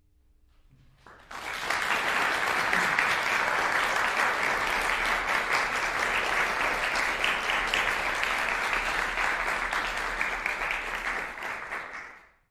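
Audience applauding at the end of a violin and piano piece. The clapping breaks out about a second in, after a faint held tone dies away, stays steady, and fades out near the end.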